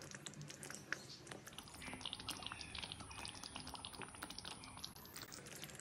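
Thick curry gravy simmering in a kadai, faint irregular pops and ticks as bubbles burst at the surface.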